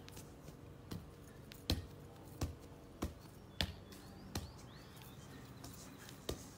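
Soccer ball being juggled with bare feet and legs on grass: a short dull thud at each touch, about six touches under a second apart, then a pause and one more touch near the end.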